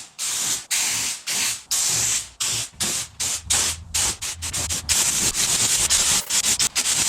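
Spray paint hissing out in short bursts, the bursts growing shorter and quicker in the second half.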